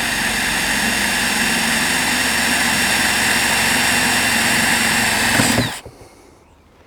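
Electric drill running steadily with a wood bit, boring out a hole in a chainsaw part; it winds down and stops near the end.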